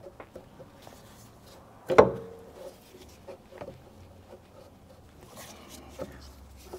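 Hand handling of a hydraulic filter canister being worked out of a tight engine bay: light clicks and scrapes of metal parts, with one sharp metallic clank and a short ring about two seconds in.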